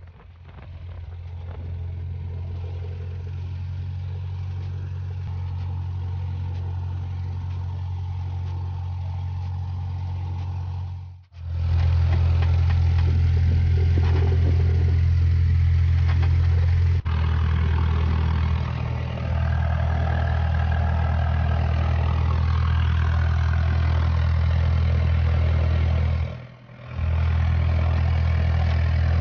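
Small plane's piston engine idling with a steady low drone. The sound drops out briefly twice, about 11 and 26 seconds in, and is a little louder after the first break.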